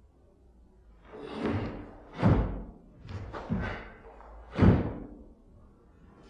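A karateka's kata moves: about five sharp swishes and thuds in quick succession as the gi snaps and bare feet stamp on a wooden floor, the second and last strikes the loudest.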